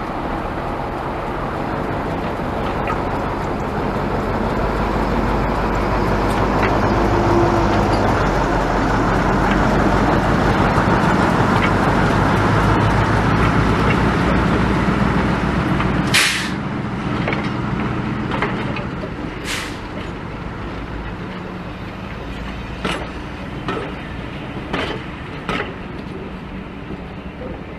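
Diesel shunting locomotive's engine running and growing louder, then easing back about two-thirds of the way through with a short hiss of air, a second hiss a few seconds later, and a few light knocks.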